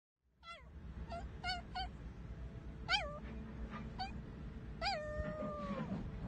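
A small animal's high-pitched cries: a string of short calls that rise and fall in pitch, then a longer call near the end that holds for about a second and drops away.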